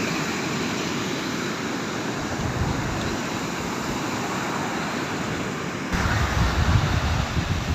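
Steady rushing noise of wind and surf on an open beach. From about six seconds in, wind starts buffeting the microphone with a gusty low rumble.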